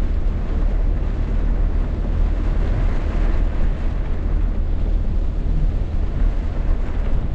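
Rainstorm: steady, loud wind buffeting the microphone, with rain noise behind it.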